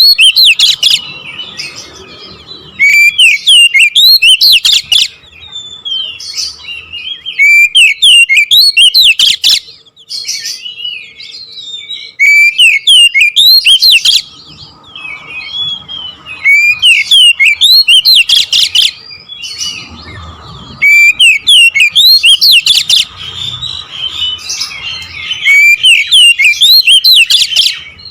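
Oriental magpie-robin (kacer) singing a continuous rolling song of fast, varied whistles and chatters, with very loud bursts of song every few seconds.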